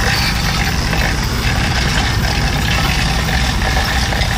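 Tow truck's engine idling steadily, a continuous low rumble.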